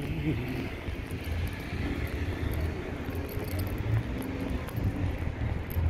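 Outdoor urban ambience: a steady low rumble of road traffic, rising and falling slightly in level.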